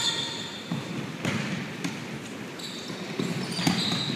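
Volleyballs being hit and bouncing on a hardwood gym floor: a sharp smack every second or so, five or so in all, with a few high squeaks from shoes on the court near the end, in the echo of a large gym.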